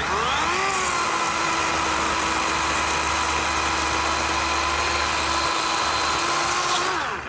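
DeWalt 40V battery chainsaw running at full speed: the motor whine climbs quickly as the trigger is pulled, holds a steady pitch for about seven seconds, and winds down near the end.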